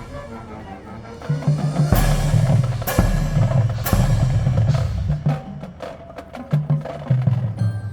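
Marching band percussion section playing: heavy accented hits about two, three and four seconds in over pitched low drums, then a run of quick sharp clicks like a wood block.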